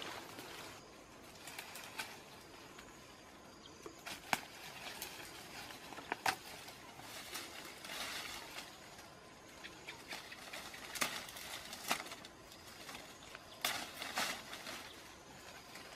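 Leaves and dry twigs rustling and crackling in dense brush as branches are pushed aside and pulled at by hand, with a handful of sharp snaps scattered throughout.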